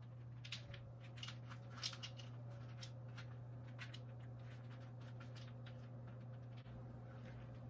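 Spatula pushing seasoned pumpkin seeds across a parchment-lined sheet pan: faint, irregular scraping and rattling of the seeds, busiest in the first few seconds, over a steady low hum.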